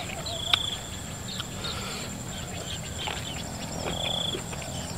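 Crickets trilling: short buzzing trills, one near the start and another about four seconds in, with a single sharp click about half a second in.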